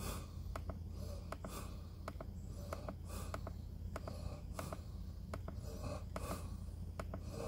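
Soft, irregular clicks of a Snap-on Solus Edge scan tool's directional buttons being pressed to scroll a data list, sometimes several in quick succession, over a steady low hum.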